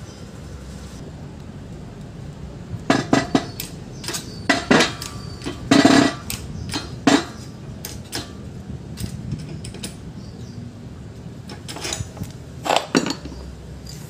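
Metal clanks and clinks of steel tools and parts knocking together, in irregular clusters from about three to seven seconds in and again near the end, over a low steady hum.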